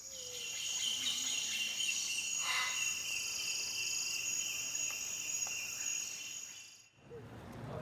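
Rainforest insect chorus: steady, shrill high-pitched buzzing from many insects. A brief call from another animal stands out about two and a half seconds in, and the chorus fades away near the end.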